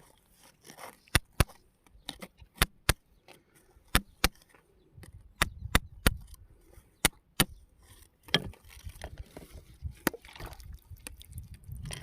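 Sharp, irregular knocks of hard objects striking each other, more than a dozen, with low rustling and handling noise in between.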